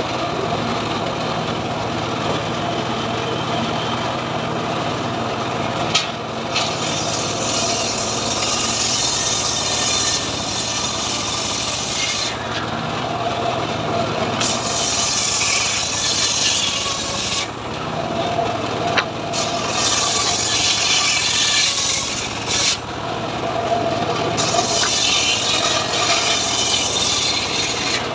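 Homemade table circular saw ripping lamtoro (leucaena) wood into planks: long stretches of blade-cutting noise, broken three or four times by a second or two of the blade spinning free between passes, over a steady low drone from the saw's drive.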